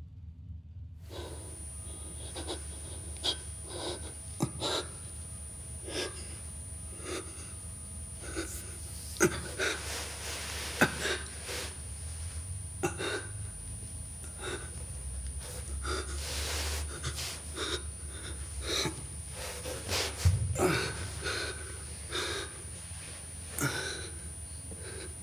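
A man's ragged gasping and breathing, with scattered sharp knocks and clicks, over a steady low hum.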